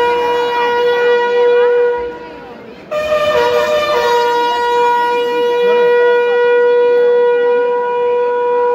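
A long note held at one steady pitch, horn-like, over faint crowd chatter. It lasts about two seconds and breaks off; about three seconds in it returns, briefly a step higher, then settles back to the same pitch and is held to the end.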